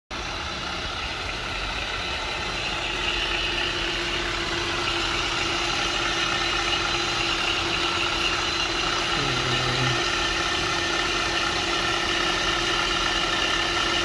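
Honda Pilot's 3.5 L V6 idling, with a steady whine from the accessory belt drive that gets a little louder about three seconds in. The noise comes from a failing automatic belt tensioner pulley.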